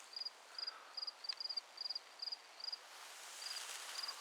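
A cricket chirping steadily, about two short high chirps a second, each a quick run of pulses, with a short pause about three seconds in.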